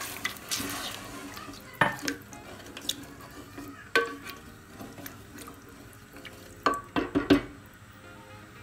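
A wooden spoon stirring watery chicken and chickpea curry in a steel pot, with sharp knocks of the spoon against the pot: one about two seconds in, another about four seconds in, and a quick run of three near the end.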